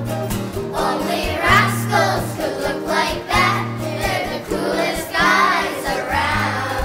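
Background music: a song with singing over held bass notes.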